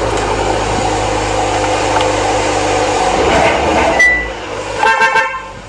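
Car horn giving a brief honk near the end, over steady background noise.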